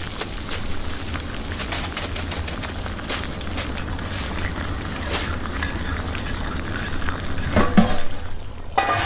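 Food frying in a pan: a steady crackle with many small pops over a constant low hum, and a few louder utensil knocks near the end.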